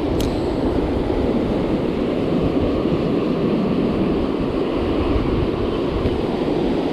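Wind buffeting the microphone over breaking surf, a steady rumbling noise, with one sharp click about a quarter second in.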